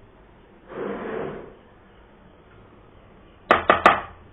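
A short scraping rustle, then three quick sharp knocks with a brief ring near the end, the last the loudest.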